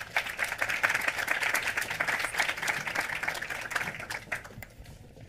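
Audience applauding, a dense patter of many claps that thins out and dies away near the end.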